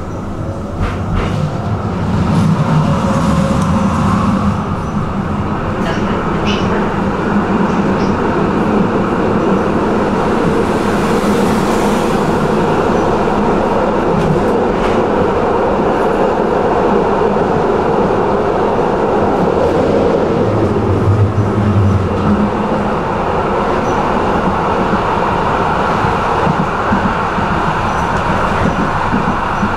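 Tram rolling along its tracks: a steady rumble of wheels on rail, with a few sharp clicks.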